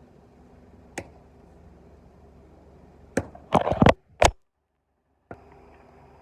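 Axe chopping into a firewood log: a single sharp knock about a second in, then a quick run of heavy strikes with the wood cracking, around three to four seconds in. The sound then drops out abruptly to silence for about a second.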